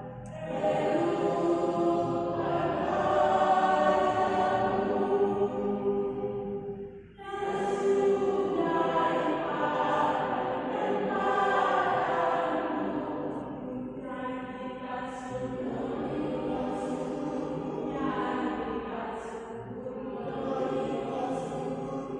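A choir singing a cappella in sustained, held phrases, with a short breath pause about seven seconds in.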